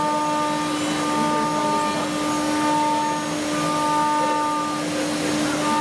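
Four-axis CNC milling machine running with a steady spindle whine while its end mill cuts a wooden block; a higher tone cuts in and out about every second as the cutter moves through its passes.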